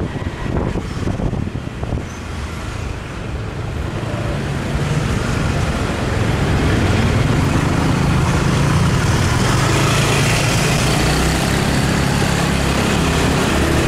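Motorbike engine and rushing wind while riding through city traffic, the engine note rising and the noise growing louder from about five seconds in.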